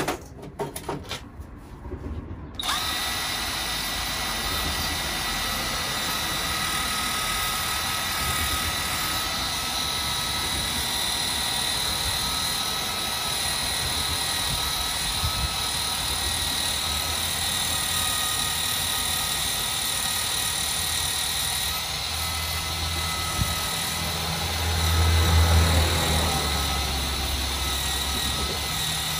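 A machine starts abruptly and runs steadily: a continuous mechanical whir and hiss with several steady whining tones. A deeper rumble swells briefly near the end.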